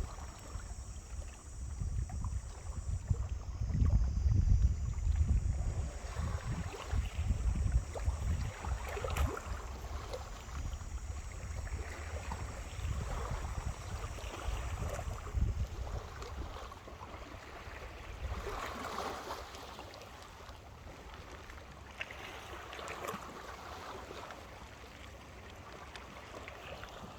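Small waves washing onto a beach, swelling every few seconds, with wind buffeting the microphone that eases after about fifteen seconds.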